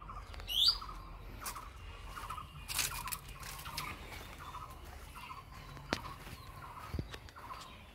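Birds calling: one loud rising chirp about half a second in, then a steady string of short repeated calls, with a few sharp knocks and a low rumble underneath.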